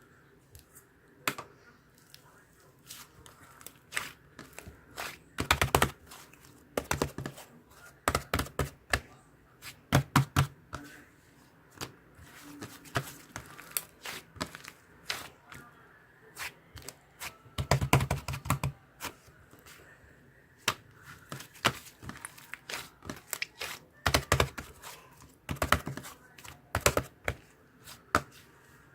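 Irregular runs of sharp clicks and taps, with brief pauses between clusters, in a small room.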